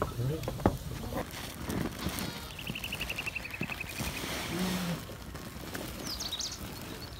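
Birds calling: a rapid trill of evenly spaced high notes, falling slightly in pitch, about two and a half seconds in, then a few short high chirps near the end.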